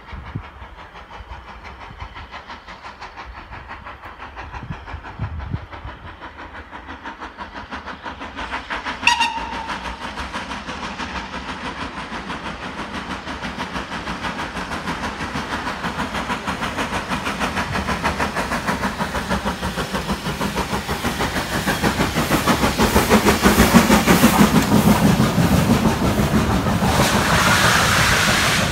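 Steam locomotive gives a short whistle about nine seconds in, then approaches with its exhaust beats growing steadily louder until it passes close by. Its vintage wooden-bodied carriages follow, rolling by with a clickety-clack.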